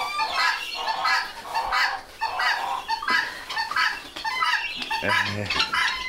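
Barnyard poultry flock calling without pause, many short overlapping calls, with a brief deeper call about five seconds in.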